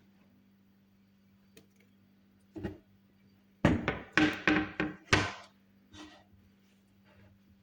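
A quick run of hard knocks and thuds, six or seven of them, from about two and a half to six seconds in, over a faint steady hum.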